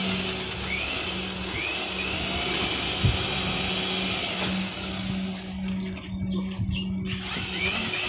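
Corded electric drill with a paddle mixer running at a steady speed in a bucket, stirring Mapelastic cementitious waterproofing mortar.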